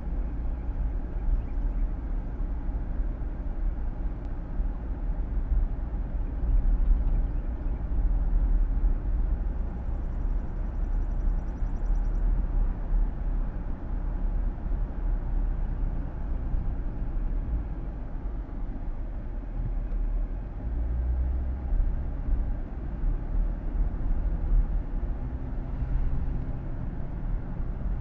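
Steady road noise inside a moving car's cabin: a continuous deep rumble of tyres and drivetrain with the air conditioning fan's hiss on top.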